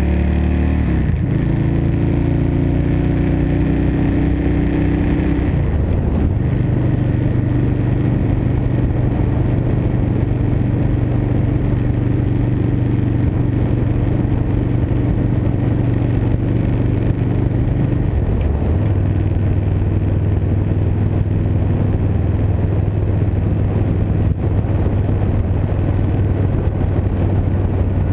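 A 2012 Victory Vegas 8-Ball's V-twin engine running at road speed, heard from the handlebars with wind rush. The engine note steps down in pitch about a second in, again around six seconds and once more around eighteen seconds, holding steady between.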